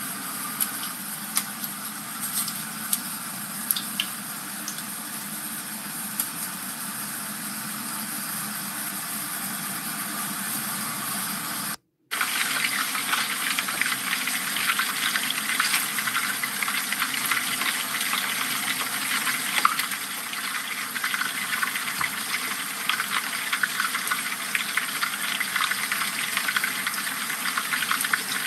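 Hot oil sizzling and crackling around whole dorado fish deep-frying in a pan: a steady hiss full of fine pops. A momentary break comes about twelve seconds in, after which the crackling is a little louder.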